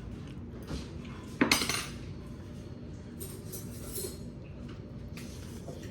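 Eating utensils clinking against a plate: one loud clatter about one and a half seconds in, then a few fainter clinks.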